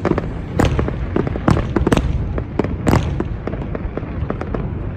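Fireworks display going off: a dense run of bangs and crackles over a continuous low rumble, with several louder booms about half a second, one and a half, two and three seconds in.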